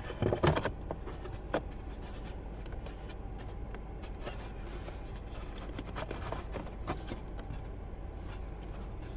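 Plastic cabin air filter housing being slid and worked back into its slot behind the glove box: scraping with a cluster of knocks in the first second and single clicks later, over a low steady hum.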